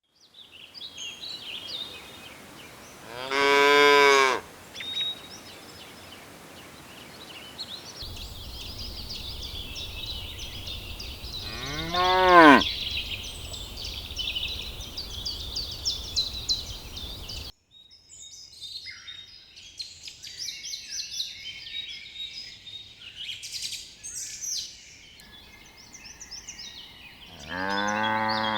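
Cows mooing: three separate long moos several seconds apart, the last near the end, with birds chirping throughout.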